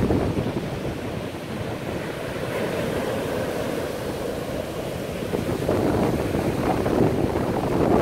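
Surf from a rough sea breaking and washing up a sandy beach: a continuous rushing that swells louder in the last couple of seconds, with wind buffeting the microphone.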